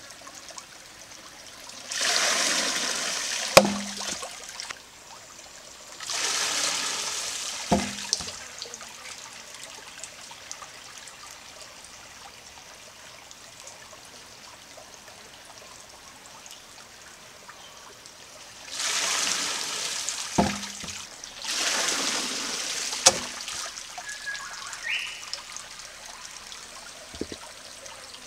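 Water-powered wooden trip hammer cycling four times: each time a rush of water spills from the tipped bucket end of the lever beam, and then a sharp knock as the wooden hammer head drops into the stone mortar. A shallow creek trickles steadily underneath.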